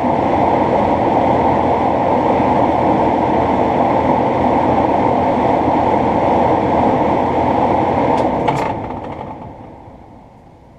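A 2012 American Standard 4-ton central air conditioner condensing unit running steadily with a loud hum and whoosh. It shuts down about eight and a half seconds in with a click, and its noise winds down over the next couple of seconds.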